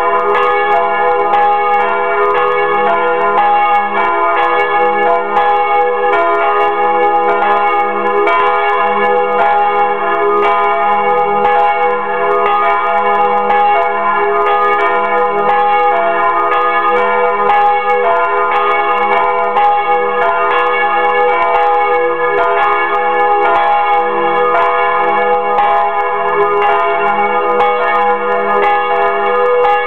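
Two church bells, a large bell by Fremy and a small bell by Bachert, swinging in a wooden frame and ringing together, heard close up inside the belfry; their strokes overlap into a loud, continuous peal. This is the ringing-in of Sunday.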